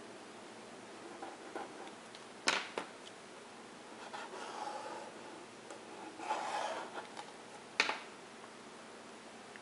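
Felt-tip marker rubbing across paper in two scratchy stretches as a box is drawn and a letter written, with a few sharp clicks of the marker being handled before and after.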